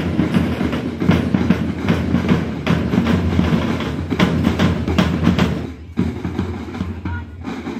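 Marching-band drums, snare drums with a bass drum, beating a steady marching cadence. The drumming drops quieter and sparser about six seconds in.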